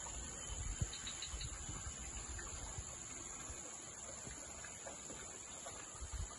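Steady high-pitched chorus of insects chirring in the surrounding vegetation, with a few dull low thumps about a second in and again near the end.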